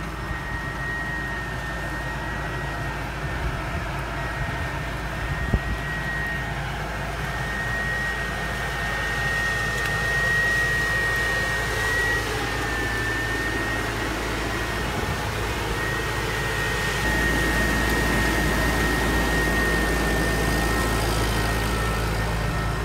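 Kubota M100GX tractor's diesel engine running while a tractor-mounted Pellenc leaf remover works the vine row, with a steady high whine over the engine. About two-thirds of the way through the sound gets louder, with more low rumble.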